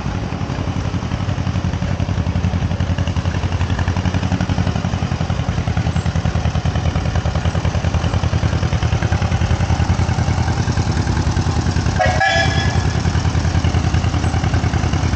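Antique tractor engine running close by with a steady, rapid pulsing exhaust beat. A short, high toot cuts in about twelve seconds in.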